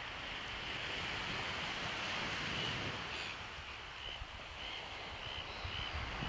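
Surf washing onto a sandy beach, a steady rushing sound. From about halfway through, a bird gives short high chirps, about one every half second or so.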